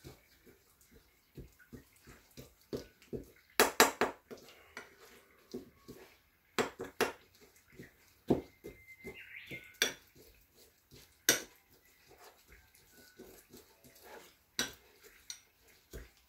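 Kitchen utensils knocking and clinking against dishes and bowls at irregular intervals during food preparation, with louder clatters about four and seven seconds in.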